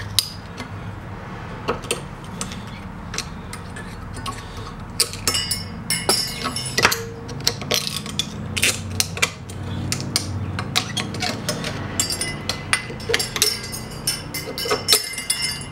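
Scattered sharp metallic clicks and scrapes as a screwdriver pries the old spring-steel hardware clips off a brake caliper bracket clamped in a steel bench vise, with small metal parts clinking. The clicks come thicker in the second half.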